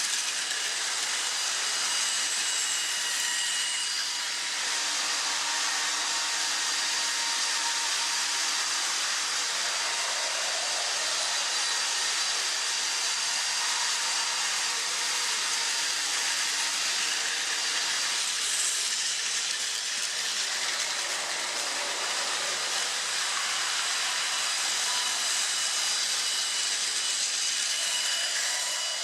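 Battery-powered Plarail toy train running on plastic track: a steady whirring hiss of the small motor and wheels, with a faint thin whine over it.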